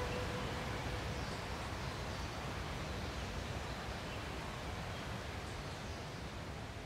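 A last note of flute music dies away at the start, leaving a steady, faint hiss of background noise that slowly fades out.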